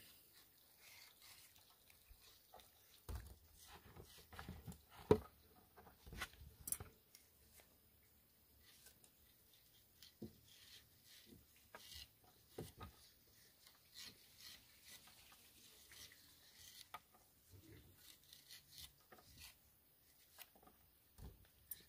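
Faint, irregular knife cuts and scrapes as the ridged edges of star fruits are sliced off with curved machete-style knives, with scattered light clicks and one sharper knock about five seconds in.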